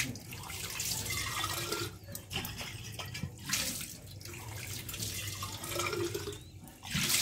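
Kitchen tap running onto a stainless steel flask being rinsed in the sink. The splashing keeps changing and briefly dips a few times as the flask is turned and moved under the stream.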